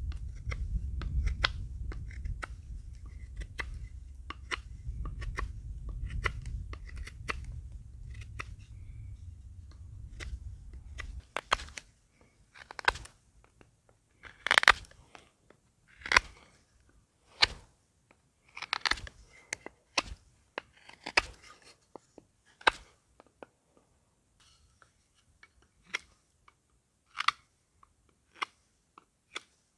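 Knife cutting wood: a series of separate shaving or slicing strokes, irregular, about one every second or two. A low rumble underlies the first ten seconds or so, then stops.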